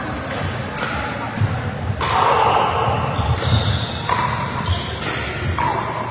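Pickleball paddles striking a plastic ball in a rally: a string of sharp pocks, one every half second to a second, echoing in a large hall.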